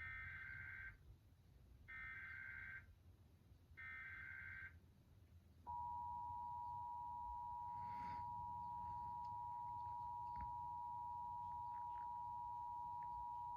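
Emergency Alert System broadcast tones. First come three short bursts of SAME header data tones, one about every two seconds. Then the steady two-tone EAS attention signal starts and holds for about eight seconds, marking the start of a required monthly test.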